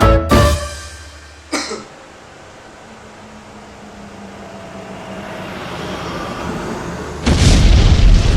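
A short sharp sound, then a quiet noise that slowly swells for several seconds, ending in a loud cough about a second long near the end.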